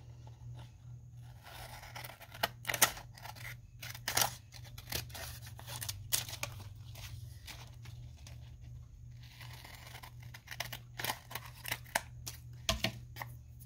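Scissors cutting paper: irregular sharp snips through printed cardstock and old book-page strips, some close together and some with pauses between. A low steady hum runs underneath.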